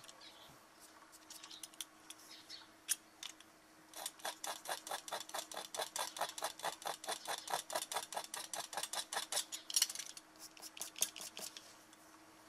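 Snap-off utility knife (cutter) blade scraping dry watercolour paper in quick short strokes, about six a second for several seconds from about four seconds in, with a few scattered scrapes before and after. The blade is scratching the dried paint off down to white paper to make a highlight.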